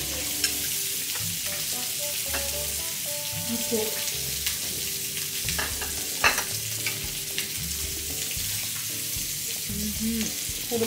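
Samgyeopsal pork belly sizzling on a tabletop grill, a steady frying hiss, with a couple of sharp clicks, the loudest about six seconds in.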